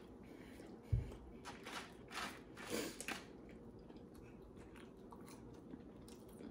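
Close-up chewing of a mouthful of cheesesteak sandwich, with a run of short wet smacks in the first half and fainter ones after. A low thump about a second in.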